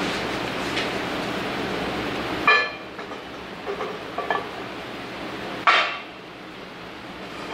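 Steel gear rack clanking against the log splitter's steel plates and pinion as it is lowered in: two loud ringing metal clanks, about two and a half seconds in and again about three seconds later, with a few lighter knocks between them.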